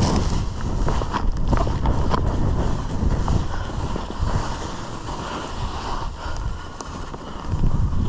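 Wind buffeting the microphone on a fast ski descent, with the hiss and scrape of skis on snow and scattered sharp clicks; it eases off somewhat in the middle and swells again near the end.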